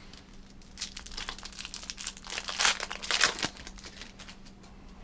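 Foil wrapper of a trading-card pack crinkling and tearing as it is opened, a run of crackles that peaks about two and a half to three seconds in, over a faint steady hum.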